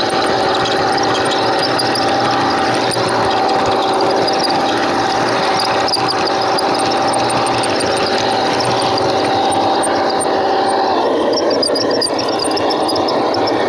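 Garden railway train running: a steady electric-motor and gear whine over the rumble of the wheels on the track, heard from on board the train. About 11 seconds in the whine stops and a rasping roll of the wheels on the rails takes over.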